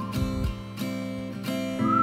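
Background music: acoustic guitar strumming chords.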